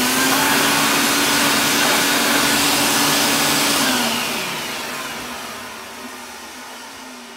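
A workshop electric motor switches on with a loud steady hum and hiss. About four seconds in it is switched off and winds down, fading gradually.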